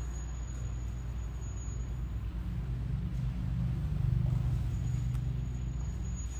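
Low steady rumble, swelling a little about four seconds in.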